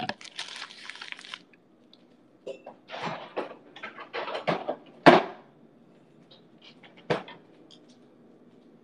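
Objects being handled and knocked about in a kitchen: a run of short clatters and rustles, with a sharp knock about five seconds in and another about seven seconds in.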